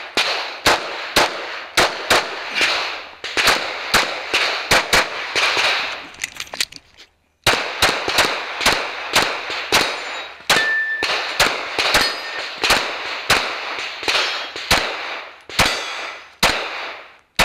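Rapid 9mm pistol fire from a Glock 19, shot mostly in quick pairs, with a short break about seven seconds in.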